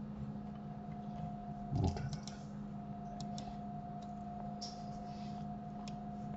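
Scattered computer mouse and keyboard clicks, with one louder low thump about two seconds in, over a steady electrical hum.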